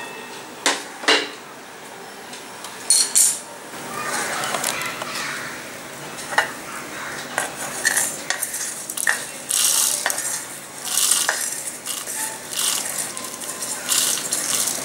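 Wooden spatula stirring and scraping dry-roasted whole spices (coriander seeds, dried red chilies, poppy seeds) against a metal kadai, the seeds rattling on the metal. There are a few sharp knocks near the start, then a run of irregular scrapes as the spices are pushed out of the tilted pan into a grinder jar.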